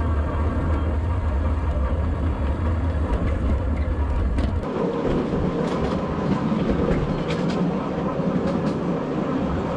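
Ride-on miniature train running on ground-level track, its wheels rattling on the rails. A deep rumble in the first half gives way abruptly, about halfway through, to a lighter rattle with scattered sharp clicks from the wheels over the rail joints.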